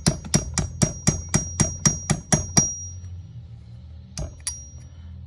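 A steel punch struck with a hammer to drive the pad-retaining pins home through a Girling brake caliper: quick metallic taps, about four a second, each with a short ringing tone. The tapping pauses a little past halfway and comes back with a couple of taps near the end.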